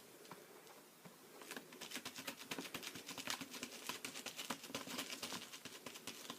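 Sponge dabbing acrylic paint through a stencil: a quick run of soft, wet taps, several a second, which grows busier and louder after about a second and a half.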